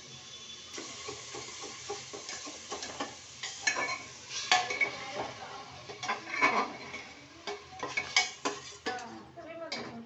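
Onion and tomato masala sizzling in an aluminium pressure cooker while a metal spoon stirs it, scraping and clinking against the pot. The scraping strokes come irregularly and grow louder after the first few seconds.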